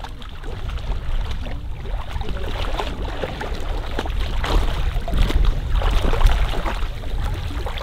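Labrador retriever wading and swimming through shallow marsh water, a run of irregular splashes that grow louder in the second half, over a steady low rumble of wind on the microphone.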